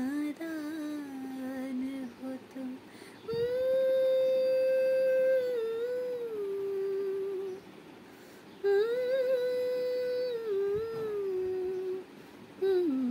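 A woman humming a song melody unaccompanied. A short, lower, wavering phrase comes first, then two long held notes that each slide down to a lower note, with a third phrase starting near the end.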